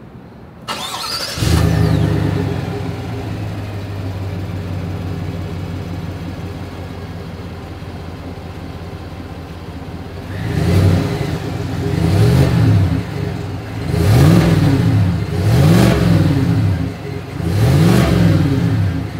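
Exhaust of a 2021 Chevrolet Tahoe LT through its single outlet: the engine is cranked and catches with a flare, settles to a steady idle, then is revved five times in quick succession, each rev rising and falling back to idle.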